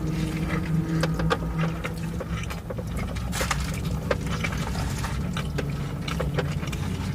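Close-up chewing of a sauce-soaked burger: many quick wet clicks and smacks, over a steady low hum.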